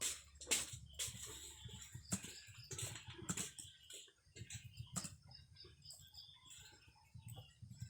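Computer keyboard typing: irregular keystrokes clicking at a few per second, with a low steady hum underneath.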